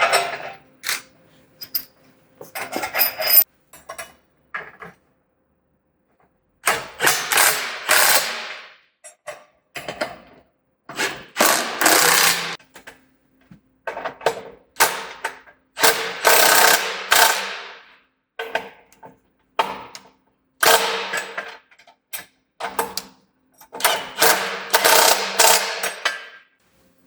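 Ratchet spanner tightening bolts during sawmill bed assembly, clicking in repeated bursts of one to two seconds with short pauses between them.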